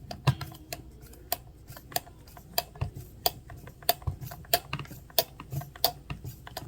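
A small hex screw on an RC truck's axle assembly being tightened down with a hand driver: a run of sharp, irregular clicks of metal tool on metal, about two to three a second.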